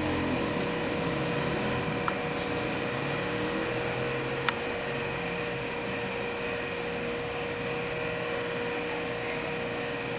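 Steady machine hum with a few fixed tones, with one sharp click about four and a half seconds in.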